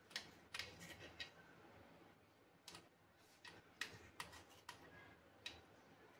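Faint, sharp clicks of scissors snipping through a steamed colocasia (arbi) leaf roll, about ten cuts at an uneven pace.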